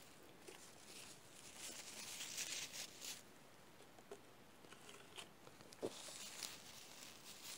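Faint close-up chewing of a mouthful of cheeseburger, with small mouth clicks. There are two stretches of rustling, about two seconds in and again near six seconds.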